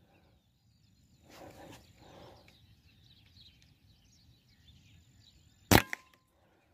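A single shot from a PCP Artemis M22 air rifle near the end: one sharp crack, followed a fifth of a second later by a smaller click. Faint bird chirping before the shot.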